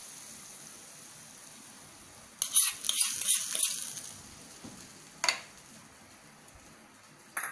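A tadka of hot oil with cumin, garlic and curry leaves sizzling as it dies down off the heat, then a sudden loud crackling sizzle about two and a half seconds in as it is poured onto the curd, fading over a second or two. Two sharp clinks follow, one a few seconds later and one near the end.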